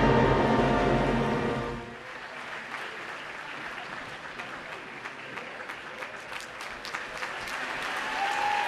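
An opera orchestra's held closing chord cuts off about two seconds in, followed by audience applause.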